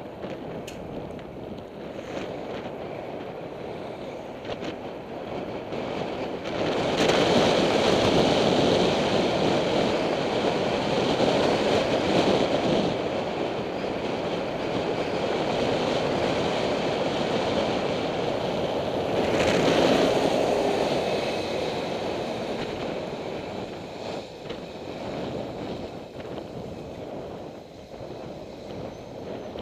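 Wind rushing over a bicycle helmet camera's microphone while riding, with road noise underneath. It grows louder about seven seconds in and eases off again after about twenty seconds.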